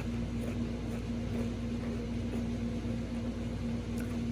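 A steady mechanical hum with one constant low tone and a low rumble beneath it, unchanging throughout.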